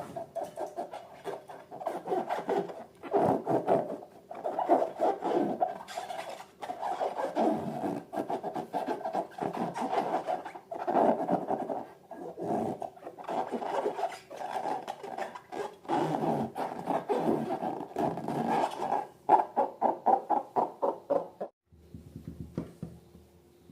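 Slime being squeezed and worked by hand, giving bursts of wet clicking and crackling. A fast run of clicks comes near the end, then it stops suddenly.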